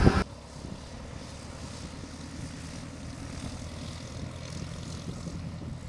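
Small propeller plane's engine running steadily, a low even drone with a fast pulse.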